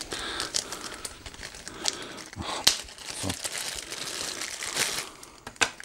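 Clear plastic packaging bag crinkling and rustling as it is handled and unwrapped, with a few sharp clicks.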